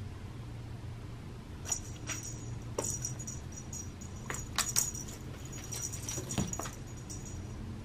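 Light metallic jingling and soft taps from a dangling wand toy on a string as a cat bats at it, in several short bursts, with a dull thump about six seconds in. A low steady hum runs underneath.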